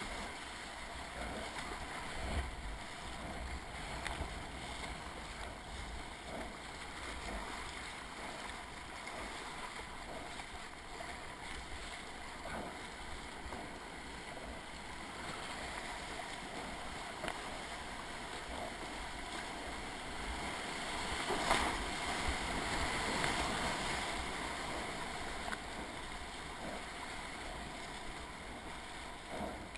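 River rapids rushing and splashing around a whitewater kayak as it paddles downstream, with the paddle blades dipping in now and then. The water grows louder for a few seconds about two-thirds of the way through.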